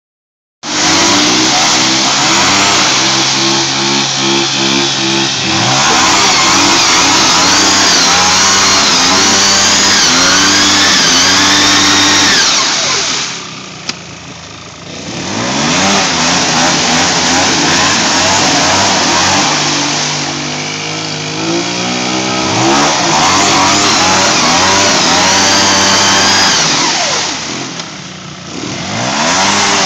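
ATV engine revving hard as the four-wheeler spins its wheels through deep mud, the pitch rising and falling with the throttle. The throttle eases off briefly about halfway through and again near the end, then the engine revs back up.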